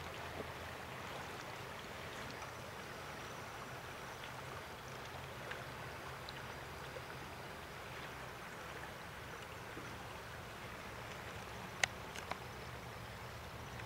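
Steady rush of a flowing river, with a couple of sharp clicks near the end.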